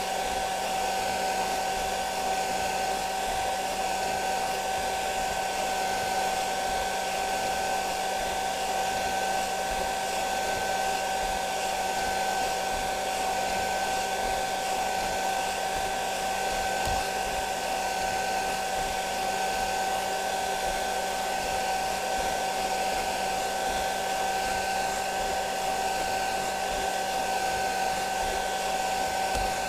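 Hair dryer blowing steadily: an even rush of air with a constant motor whine.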